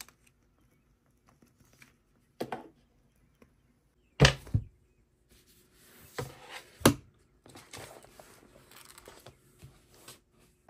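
Books being handled on a wooden desk: several sharp knocks as they are set down and moved, the loudest about four seconds in. Then the thin pages of a Bible rustle as it is opened and leafed through.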